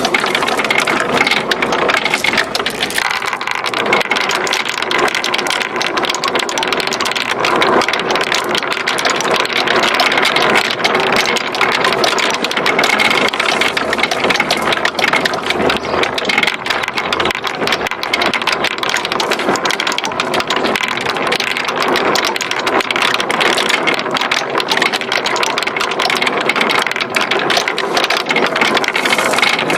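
Many marbles rolling and clattering down a wooden marble-run slope: a dense, continuous rattle of fast clicks.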